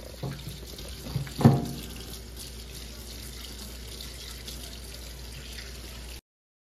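Kitchen faucet running in a steady stream into a stainless steel sink, splashing over celery stalks being rinsed by hand. A short vocal sound comes about a second and a half in, and the water cuts off suddenly about six seconds in.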